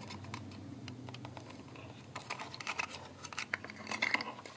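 Quick, irregular clicks and taps of small hard parts being handled during a teardown of an electric scooter's controller.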